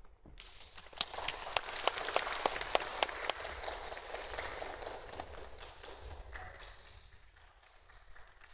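Audience applauding, breaking out just after the start, at its fullest for the first few seconds, then thinning out and dying away over about seven seconds.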